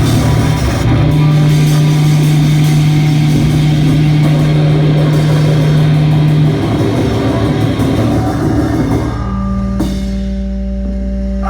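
Live band playing loud rock with guitar and drum kit, a low note held for several seconds; about nine seconds in the playing thins out to a few steady sustained tones ringing on.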